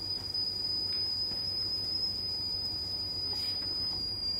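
A steady, high-pitched single-tone whine over a low hum.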